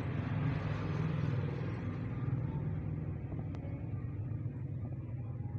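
A steady low rumble, with a faint click about three and a half seconds in.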